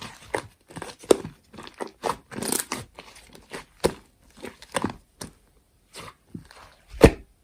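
Slime being squeezed and pressed by hand, giving irregular crackling pops and squelches, with one sharp pop near the end.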